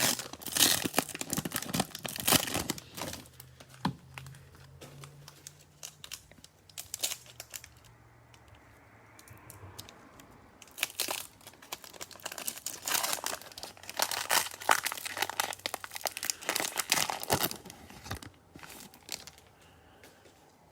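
Cellophane wrapper of a trading-card cello pack crinkling and being torn open. There are two bouts of crackling, the first few seconds and again from about ten seconds in, with a quieter stretch between.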